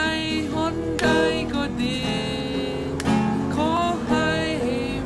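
A man singing solo while strumming an acoustic guitar, with heavier strums about one and three seconds in.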